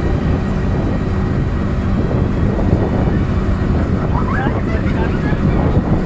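Electric rack-railway railcar of the Drachenfelsbahn running along the cog track, a steady low rumble of motor, wheels and rack gearing heard from inside the car. A few brief higher-pitched rising sounds come in about four seconds in.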